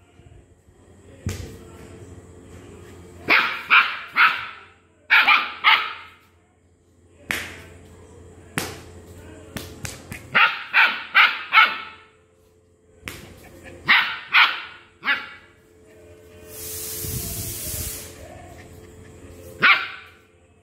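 A dog barking angrily in quick runs of three or four barks, several runs in all, with a last single bark near the end. A few sharp knocks fall between the runs, and a short hiss comes about three-quarters through.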